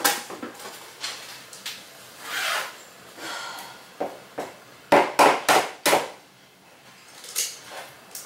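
An egg being tapped and cracked against a mixing bowl: scattered light taps and shell scraping, then four sharp knocks in quick succession a little past halfway through.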